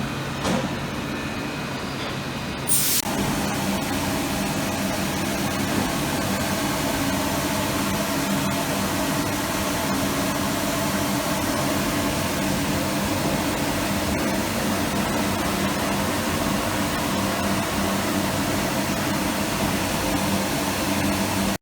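Okuma LU 15-2SC CNC lathe running: a steady machine hum with a hiss. About three seconds in a brief sharp hiss sounds, and the machine then runs louder and steady, with several hum tones.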